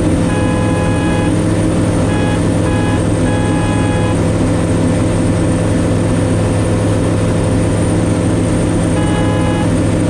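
Kitfox Model 7 Supersport light aircraft's piston engine and propeller running at a steady cruise drone, heard from inside the cockpit. Short high beeps come and go over the first few seconds and again near the end.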